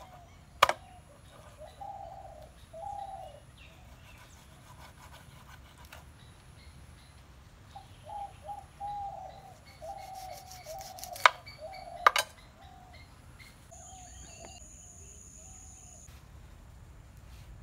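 A few sharp knocks of a knife striking a wooden cutting board while fish is chopped, one about a second in and two close together around eleven to twelve seconds in. Birds coo and call on and off in between.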